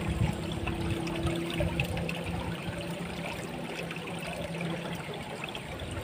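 Fast-flowing water running through a small, shallow ditch, a steady rush. A faint low hum underneath fades out about five seconds in.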